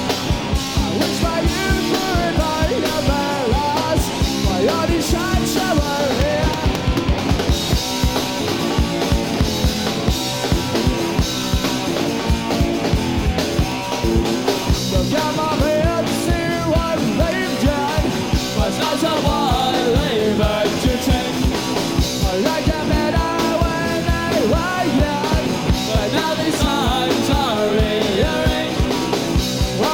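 Punk rock band playing live, with fast, steady drum hits under electric guitars.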